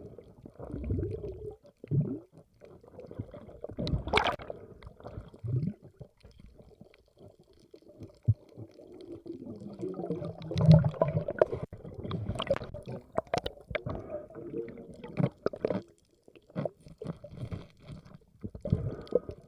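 Water sloshing and gurgling close to the microphone in irregular low swells, with scattered sharp clicks.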